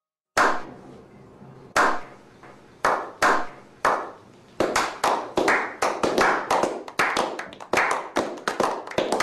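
A slow clap: single hand claps, about a second apart at first, coming faster. About halfway through, several people join in and it becomes steady, overlapping clapping.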